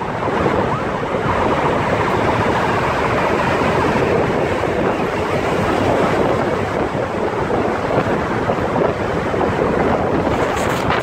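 Wind rushing over the microphone while moving through road traffic, with vehicle engine and tyre noise mixed in; a loud, steady rumble.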